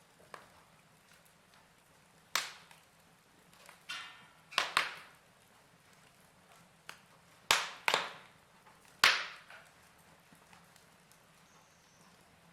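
Fire crackling: sparse sharp snaps and pops, about seven of them at uneven intervals, each dying away quickly over a faint steady background.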